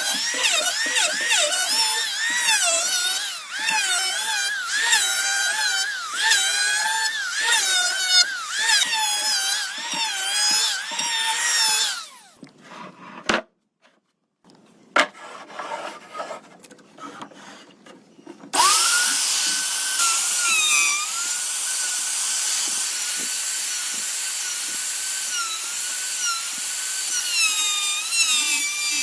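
High-pitched power tool motor working wood, its whine dipping and recovering again and again as it bites into the cut. It stops about twelve seconds in, leaving a few seconds of scattered clicks and handling. It then starts again suddenly and runs more steadily, with occasional dips under load.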